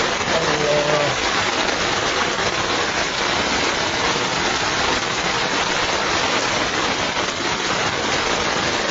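Steady rain falling on standing floodwater, an even hiss throughout.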